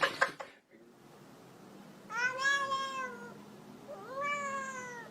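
A cat meowing twice: two long drawn-out meows, each gliding up and then down in pitch, about a second apart. A short burst of noise comes right at the start.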